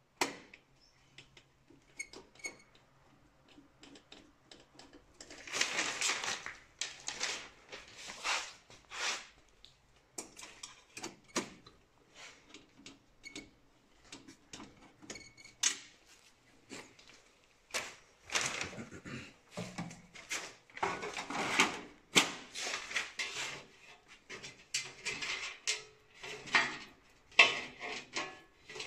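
Screwdriver and hand-handling noises on the scanner of an Océ PlotWave 300 wide-format printer: scattered clicks, knocks and rattles of metal and plastic cover parts, coming in irregular bursts with quieter gaps between them.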